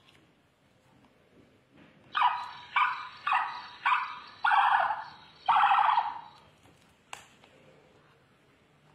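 A novelty sound book's electronic sound chip plays its ostrich chirping sound through a small tinny speaker, set off by tickling the touchy-feely patch. It is four short calls followed by two longer ones.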